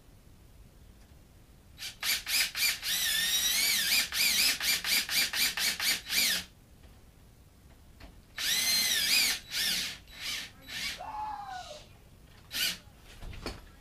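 Cordless screw gun driving small self-tapping screws that hold the latch plate into the edge of a steel door. A few quick trigger blips, then a long run with the motor whine wavering under load, a second run partway through, and a few short blips near the end.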